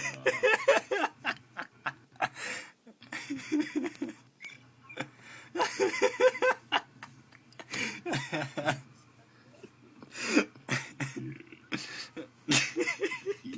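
People laughing in repeated short bursts, with a faint steady low hum underneath.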